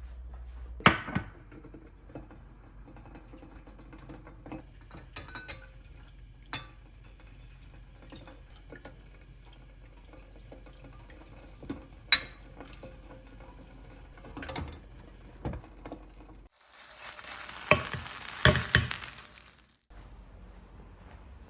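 Cooking at a pan: scattered clicks and knocks of a utensil against cookware, two of them sharp, about a second in and about twelve seconds in. Near the end comes a loud burst of frying sizzle lasting about three seconds, which cuts off suddenly.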